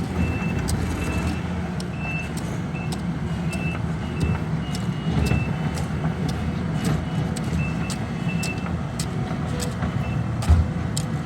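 Heavy diesel construction machinery running steadily, its backup alarm sounding in short repeated beeps that stop for a couple of seconds past the middle and briefly return. Sharp clicks and clanks run through it, with a low thump near the end.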